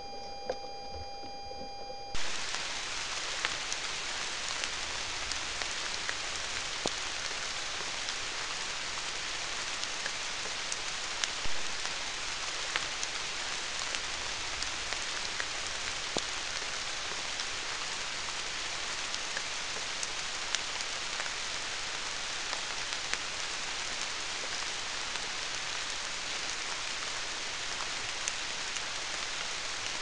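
Steady rain falling, a dense even hiss with scattered sharp drops, starting abruptly about two seconds in; one drop about eleven seconds in is louder than the rest. Before the rain, only faint steady high tones are heard.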